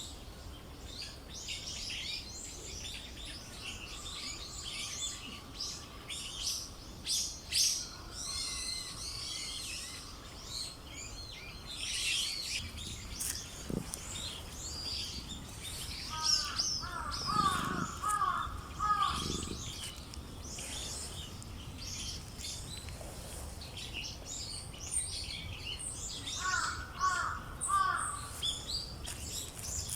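Small birds chirping and twittering continuously, with a lower run of repeated calls twice: about halfway through and again near the end.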